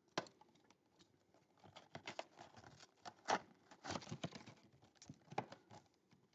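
Cardboard trading-card box being pulled open by hand: irregular scraping and rustling of the flaps with several sharp cardboard clicks.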